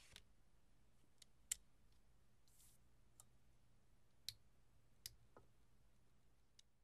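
Near silence: room tone with a faint low hum, broken by about eight small, irregularly spaced clicks. The sharpest click comes about a second and a half in.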